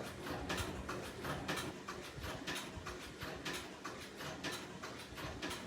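Sewing machine stitching leather slowly and evenly, its needle mechanism clicking about twice a second.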